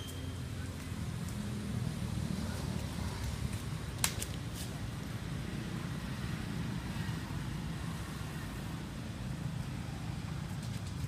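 Steady low rumble of background noise, with one sharp click about four seconds in.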